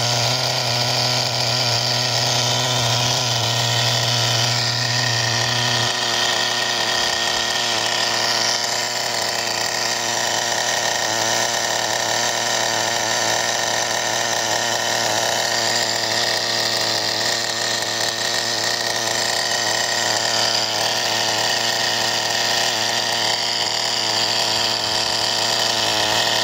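Small two-stroke nitro glow engine of a radio-controlled buggy running steadily, freshly restored after six years in storage. Its tone shifts slightly about six seconds in.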